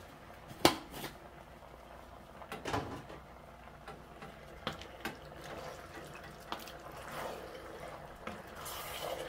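Wooden spoon stirring a thick bean and vegetable stew in a stainless steel pot, with wet squelching of the stew and a few light knocks of the spoon against the pot. A single sharp knock comes about a second in.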